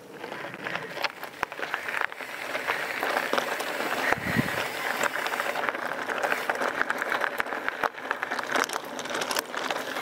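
Mountain bike tyres rolling over loose gravel: a steady crunching with many small clicks and pops, and a brief low thump about four seconds in.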